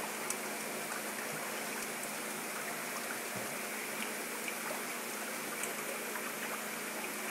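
Steady trickle and splash of water circulating in a reef aquarium frag tank, with a few faint clicks.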